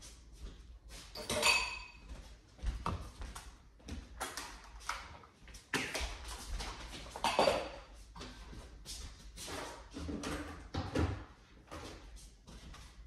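Kitchen handling noises: scattered clicks and knocks of utensils and dishes, with one ringing clink about a second and a half in.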